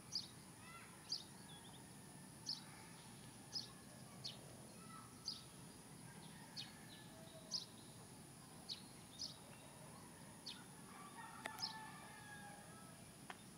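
A bird chirping repeatedly, one short, sharp, high note about once a second, over a faint steady high hum.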